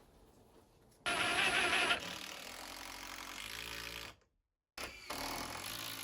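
An electric power tool running: a loud burst about a second in, then a steadier whir, and a second run after a brief break.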